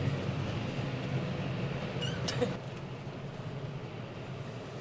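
Tractor engine running steadily with a low hum. A short high-pitched squeak comes a little past two seconds in, after which the engine sound drops slightly.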